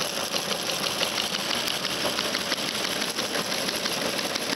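Vintage Teletype machine running and printing, a rapid, steady mechanical clatter. It is printing an internet text stream that arrives as audio tones and is converted into pulses that drive its printing mechanism.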